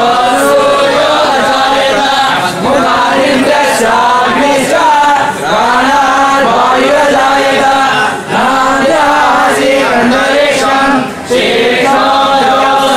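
A group of men chanting hymns together in unison, a steady sung recitation in long phrases with brief pauses about eight and eleven seconds in.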